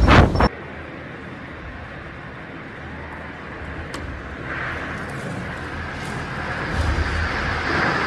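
Storm wind and rain making a steady rushing noise that slowly grows louder. A loud blast of wind on the microphone cuts off abruptly about half a second in.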